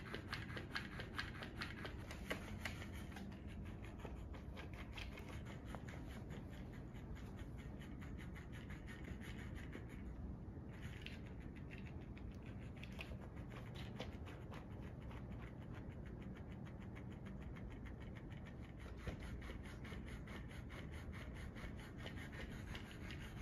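Electric flopping-fish cat toy running, its motor-driven tail making a rapid, steady ticking and rustling, which goes on as the cat grabs and kicks at it on the carpet.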